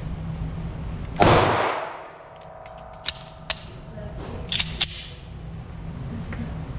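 A single 9mm shot from a Glock 19 pistol about a second in, loud and echoing in an indoor range for about half a second. A few sharp clicks follow over the next couple of seconds as the pistol is handled.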